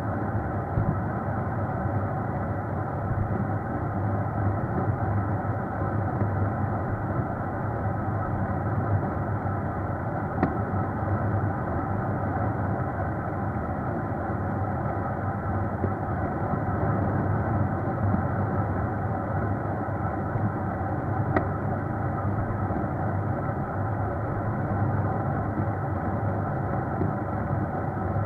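Steady running and road noise of a vehicle driving along, a constant low drone with no rise or fall, heard through a dashcam microphone. Two faint clicks, about ten and twenty-one seconds in.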